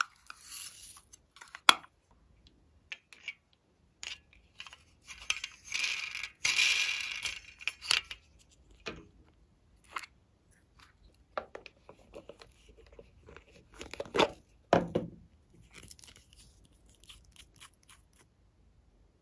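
Small plastic toy cases and jars clicking and tapping as they are opened and handled, with a dense rustle of sprinkles being shaken out onto slime about halfway through and a few louder knocks later on.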